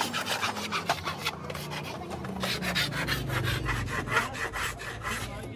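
Flat hand file rasping along the edge of a strip of red plastic tail-light lens in quick, even back-and-forth strokes, smoothing the cut edge.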